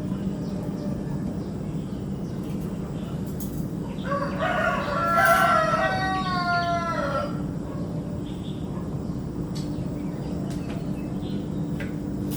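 A rooster crows once, about four seconds in: a single cock-a-doodle-doo of about three seconds that drops in pitch at the end. A steady low hum runs underneath.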